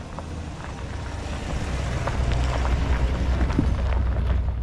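GMC pickup truck driving past on a dirt and rock trail: a low engine rumble with tyres crackling over stones and twigs, growing louder as it nears and passes about three to four seconds in.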